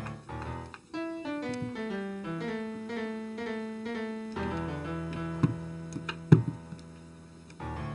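Background piano music playing descending runs of notes, with a few sharp taps about five to six seconds in, the loudest near the end, from a cat's paw striking a window pane.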